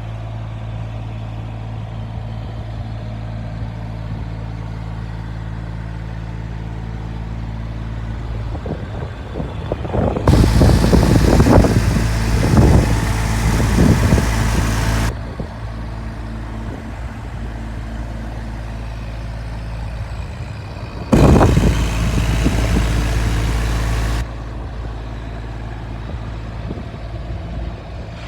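Small diesel engine of a JCB 8008 micro excavator running steadily. Twice, about ten seconds in and again near twenty-one seconds, it breaks into a much louder, hissing working noise lasting a few seconds, which starts and stops abruptly.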